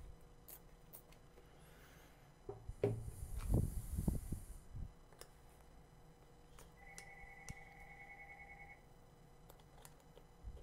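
Quiet handling noise of hands prying a MacBook Pro's glued battery cell loose: soft knocks and rubbing bunched together a few seconds in, with a short hiss over them. A faint steady two-pitched tone sounds for about two seconds past the middle.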